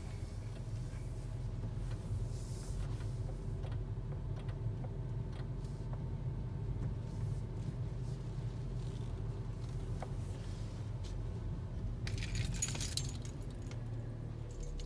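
Cabin noise of a 10th-generation Honda Civic: a steady low rumble with scattered light clicks and rattles, and a louder jangling rattle about twelve seconds in. This is the intermittent weird noise from the driver's side that the owner says the dealer could not find.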